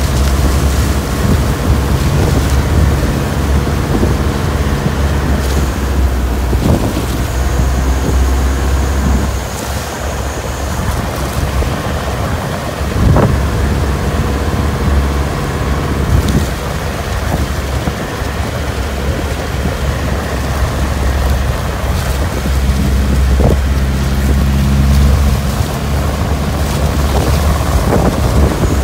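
Outrigger boat's engine running steadily, half buried under heavy wind buffeting the microphone and rough lake waves washing against the hull and bamboo outrigger, with a few louder splashes.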